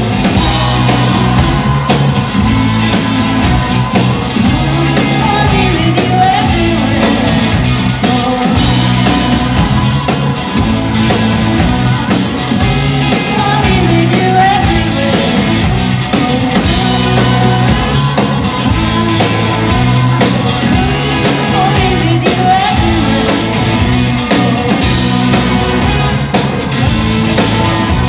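Live pop-rock band playing and singing: electric guitars, keyboard and drum kit under a lead vocal with backing vocals.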